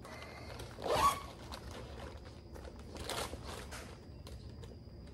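Zipper along the top of a soft tackle storage bag being drawn, with bags and packs of plastic baits handled. The loudest swish comes about a second in, and a weaker one around three seconds in, among small clicks.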